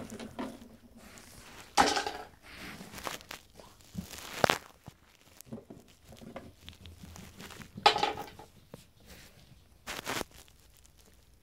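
Handling noise: scattered rustling and crinkling, with a few louder scrapes about two, four and a half, eight and ten seconds in, as small plastic toys and the phone are moved about by hand.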